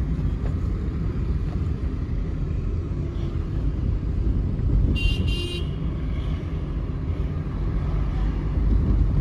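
City road traffic heard from a moving vehicle: a steady low rumble of engines and road noise, with a vehicle horn honking briefly about five seconds in.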